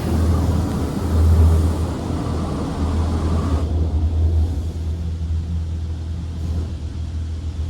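PDQ Laserwash M5 touchless car wash heard from inside the car: a steady low rumble with the hiss of spray on the car, the hiss cutting off about three and a half seconds in.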